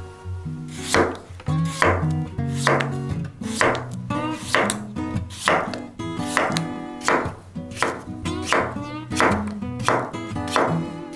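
A kitchen knife slicing through raw potato and striking a wooden cutting board, about two even chops a second.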